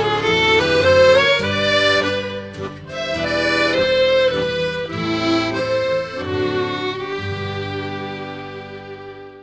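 Instrumental folk music on accordion and fiddle, with sustained bass notes under the melody. It fades down over the last couple of seconds.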